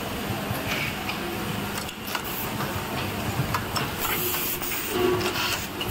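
Automatic USB cable soldering machine running: a steady mechanical din with scattered clicks and short hisses of compressed air from its pneumatic cylinders, the strongest hiss about four seconds in.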